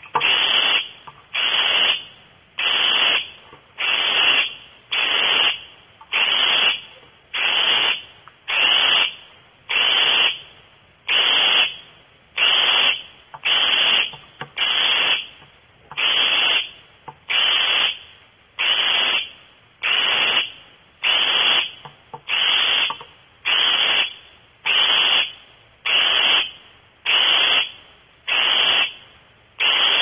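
Barn owl giving harsh rasping hisses in a steady rhythm, one about every second, each lasting about half a second: the 'snoring' begging call of young barn owls.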